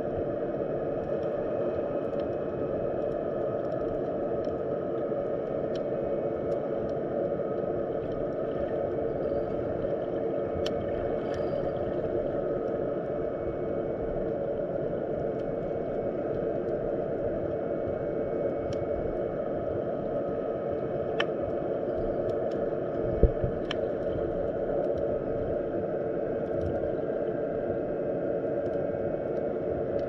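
Underwater sea ambience heard through a submerged camera: a steady low rush of water with a faint steady hum, scattered small clicks, and one low knock about 23 seconds in.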